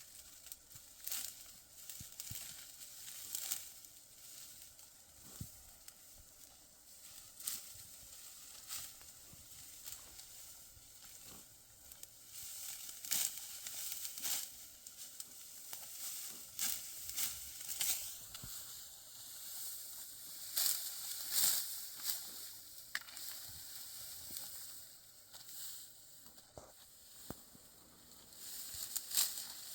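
Dry crackling and rustling, with irregular sharp crunches every second or so over a faint hiss.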